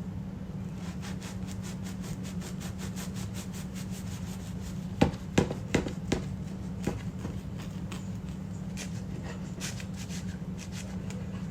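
Bread knife sawing through the crust of a freshly baked homemade loaf: quick, regular crackling scrapes. A few sharp knocks, the loudest sounds, come in the middle, with a steady low hum underneath throughout.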